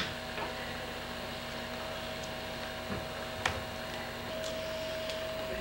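Quiet room tone: a steady faint hum, with a soft knock about three seconds in and a small click half a second later.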